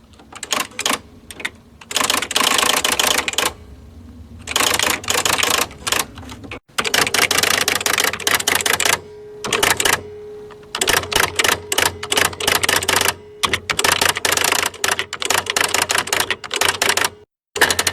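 Electric typewriter being typed on in quick runs of key strikes broken by short pauses, over a steady hum.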